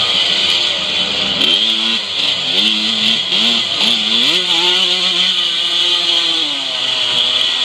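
Classic 125cc two-stroke motocross bike engine revving hard through quick gear changes, with several short rising sweeps in the first four seconds. The revs then hold high for about two seconds before easing off near the end, over a steady high hiss.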